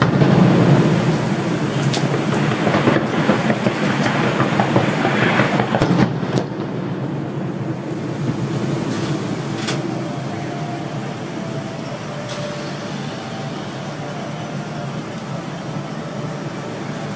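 Street traffic: a heavy vehicle passes loudly for the first six seconds, then a steadier, lower hum of road traffic continues.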